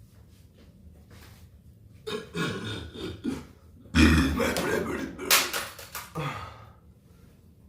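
A person burping on purpose: a shorter burp about two seconds in, then a long, loud burp starting about four seconds in and lasting around two seconds.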